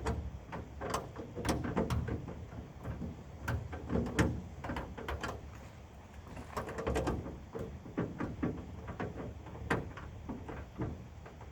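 Irregular metallic clicks and knocks of a socket wrench and hand tools working on a pickup's tailgate latch as its bolts are tightened and the latch metal is bent to take the socket.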